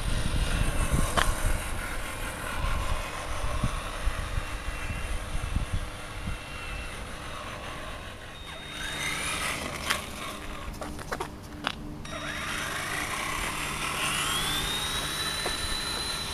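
Electric motor of a Traxxas Summit RC monster truck whining as it drives, the pitch rising and falling with speed. A low rumble is loudest in the first couple of seconds, and a few sharp clicks come about ten to twelve seconds in.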